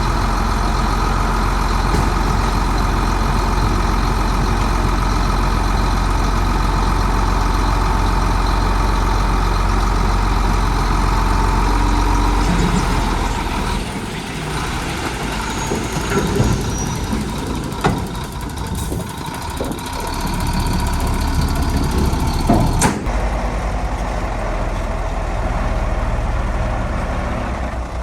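Heavy diesel machinery running at a steady idle, then a rougher stretch with scattered knocks and clanks, including one sharp loud clank about 23 seconds in.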